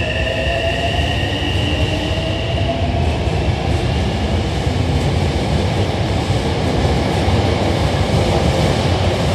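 Hankyu 9000 series electric train pulling out of the station: its traction motors whine with a pitch that rises over the first few seconds, then fade under a steady, slowly building rumble of wheels on rails as the cars run past.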